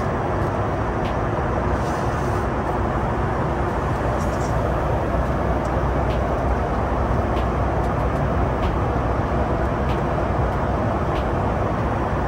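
Steady cabin roar of a Boeing 737 MAX 8 airliner in flight, engine and airflow noise heard from inside the cabin, with a few faint light clicks.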